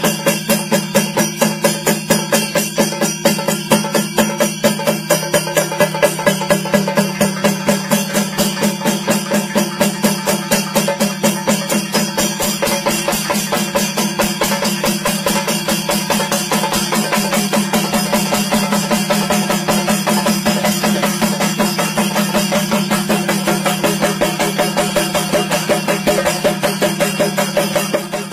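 Chenda drums in a Kerala thayambaka: a child's lead chenda played with sticks over several accompanying chendas, in a fast, dense, even pulse of stick strokes.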